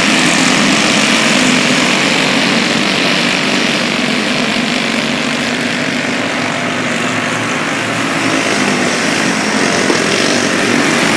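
Engines of alcohol-fuelled racing karts running as they circle the track, a steady loud drone with a slight dip in the middle.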